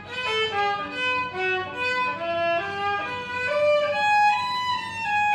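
Violin playing a melody of short, stepping notes.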